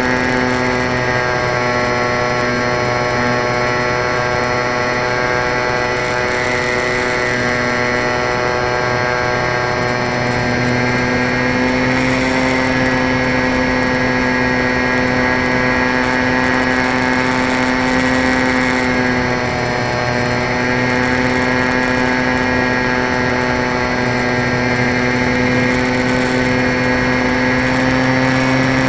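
Electric motor and propeller of a small radio-controlled model plane, heard from a camera on board in flight: a steady whine whose pitch holds nearly constant, with air rushing past.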